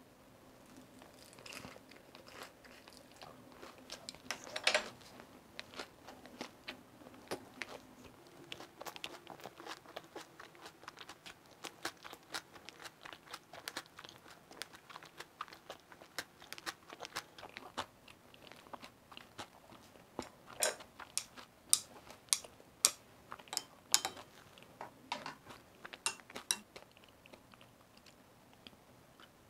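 Close-up chewing of a mouthful of chive pancake (buchujeon): a long run of small wet mouth clicks and soft crunches, growing louder and more frequent in the last third.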